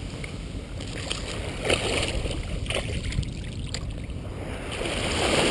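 Gentle surf washing up over sand at the water's edge, the wash swelling again near the end, with a few short splashes near the middle.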